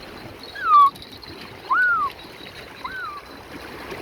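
A series of short whistled calls, about one a second, each rising then falling in pitch, over light splashing water.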